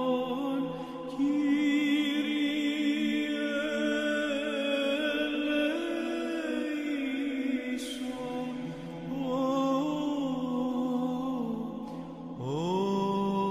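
A male cantor singing Greek Orthodox Byzantine chant, with long held, gently ornamented notes in phrases broken by short pauses. A new phrase begins near the end with an upward slide in pitch.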